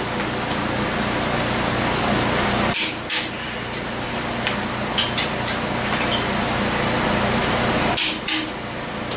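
Click-type torque wrench breaking over at set torque on the head bolts of a Ford 460 big-block, a sharp double click about three seconds in and again near the end. There are a few lighter ticks in between as the wrench is moved to the next bolt. A steady hum runs underneath.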